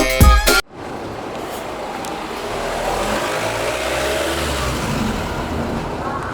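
Background music cuts off abruptly about half a second in, followed by steady car or road-traffic noise from an engine. It swells gradually and then eases slightly.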